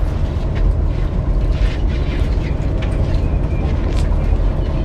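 Steady low rumble of a charter fishing boat under way, with faint voices in the background.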